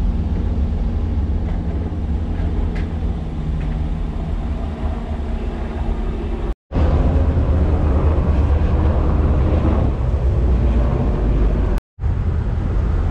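Steady low engine rumble of motor vehicles, heard from inside a vehicle with a faint hum of an idling engine. The sound cuts out abruptly twice, about six and a half seconds in and near the end, and after the first break the rumble is louder.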